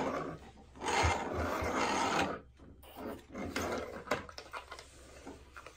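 Plastic toy cars rolled along a wooden tabletop: a rumble of wheels on wood about a second in, lasting about a second, then fainter scraping and a few clicks.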